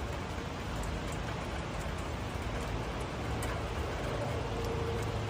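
Heavy rain falling, a steady hiss with a low hum underneath.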